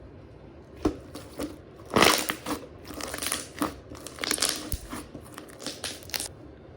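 Slime being squeezed and pressed by hand, giving irregular clusters of crackles and pops, loudest about two seconds in.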